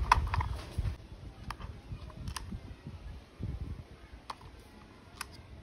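A handful of light, sparse clicks from a plastic toy car body and its small screws being handled and set into the screw holes, over faint low handling noise.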